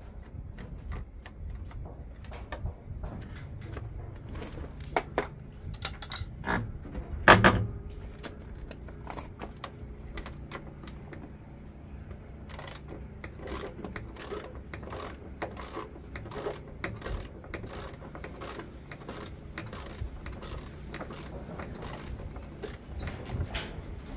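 Metal clinks and knocks from hand work on a washing machine, one loud sharp knock about seven seconds in, then a steady run of clicks about twice a second over a low hum.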